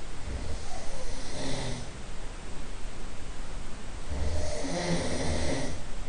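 A man snoring, heard from the next room: two long snores about four seconds apart, the second longer, over a steady background hiss.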